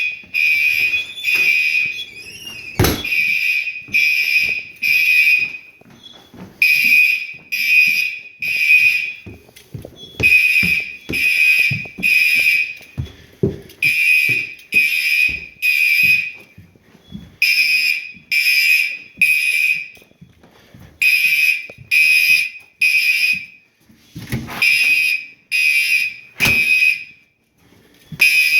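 Fire alarm horns sounding the temporal-3 evacuation pattern during a system test: three short, high-pitched blasts, then a pause, repeating. A few sharp knocks cut in, the loudest about three seconds in.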